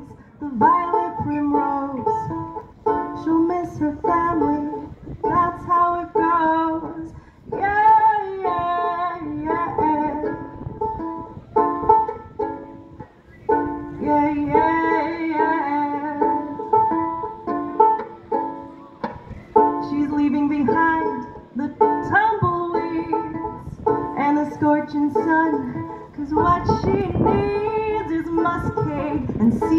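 Banjolele (banjo-ukulele) played in a folk song, with a woman singing over it at times.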